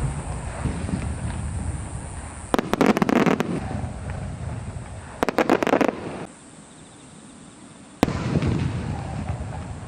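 Aerial fireworks bursting. A rumbling echo fades, there are two bursts of rapid crackling about three and five seconds in, and near the end a sharp boom rolls off in a long echo.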